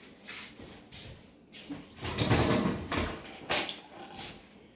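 Household items being handled: a few light knocks, then a longer scraping, sliding sound about two seconds in, the loudest part.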